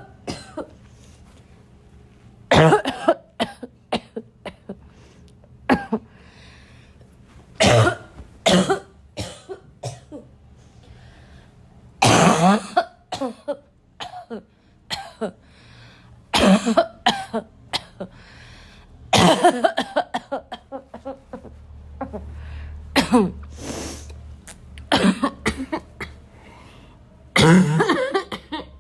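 A person in a loud, barking coughing fit: bouts of several harsh coughs in quick succession, repeated again and again with short pauses between bouts.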